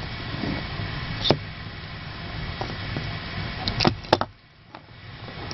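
Bicycle chain and chain tool being handled, with a steady rustle and a few sharp metallic clicks, once about a second in and several in quick succession near four seconds. The handling falls briefly quiet right after the clicks.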